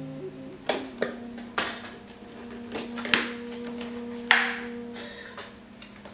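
Cardboard box being opened by hand: a series of sharp taps, snaps and scrapes as the lid and inner flaps are pulled apart. The loudest comes about four seconds in, followed by a short sliding rustle of card.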